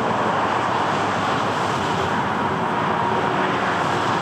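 Airbus A330-941 (A330neo) airliner's Rolls-Royce Trent 7000 turbofans at climb thrust just after take-off: a steady jet roar with faint steady tones inside it.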